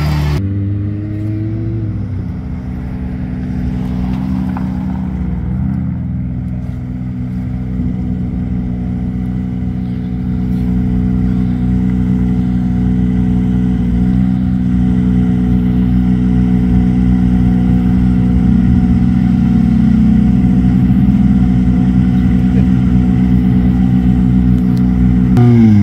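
Ford Fiesta rally car's engine idling steadily close by. The engine's pitch dips and rises near the end.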